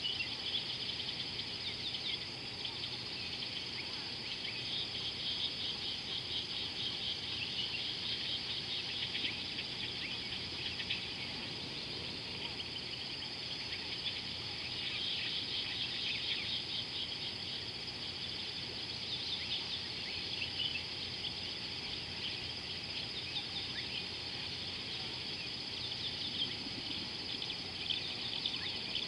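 Evening insect chorus: a steady high-pitched trill with many quick chirps over it, continuing without a break.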